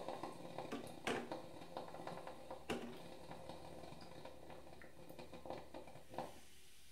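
Philips drip coffee maker brewing: faint, irregular gurgling and popping as the heater pushes hot water through, with a few sharper clicks. It dies away shortly before the end.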